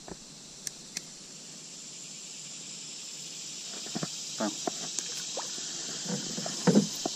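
Steady, high-pitched chorus of insects shrilling in the riverside trees, slowly growing louder. Over it come a couple of sharp clicks and, in the second half, a few short knocks and rustles from hands and pliers handling a small fish in the kayak.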